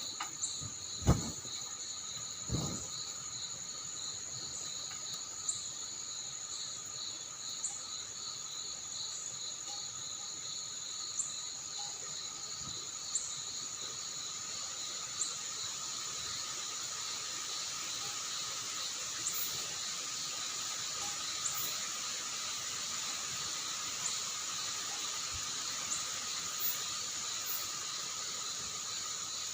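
Crickets and other insects trilling steadily, one with a fast pulsing trill and others with a continuous high buzz, over a faint hiss. Two sharp knocks sound in the first three seconds.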